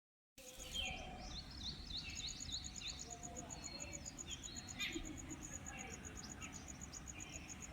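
Several birds chirping, including a quick series of about five repeated notes early on. A high, evenly pulsed trill starts about two seconds in and runs under the calls, over a low rumble.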